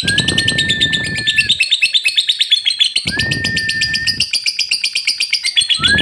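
Cobalt-blue lovebird chattering in a long unbroken run of rapid high chirps, about ten a second. A separate steady whistle-like tone with a low rush under it comes in three times, about three seconds apart.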